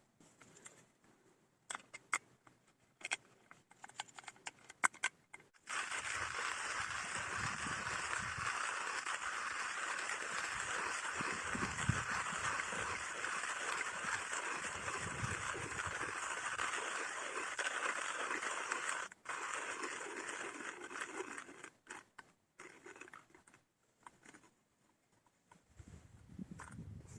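Hand coffee grinder grinding roasted beans. A few light clicks and rattles come first; about six seconds in, a steady crunching grind starts and runs for about fifteen seconds, with a brief break near the end, and then only scattered clicks remain.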